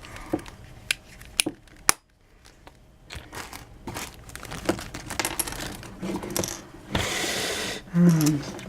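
Small hard plastic clicks and taps from handling a DaYan Megaminx puzzle whose center caps are popping off. About a second of rustling follows near the end, then a brief low murmur.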